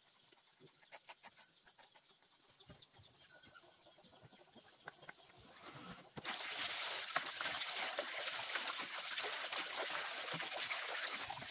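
Faint scattered clicks of a rabbit gnawing a raw bamboo shoot, then about six seconds in a sudden, steady rush of water being poured and splashed over bamboo shoots in a plastic basin.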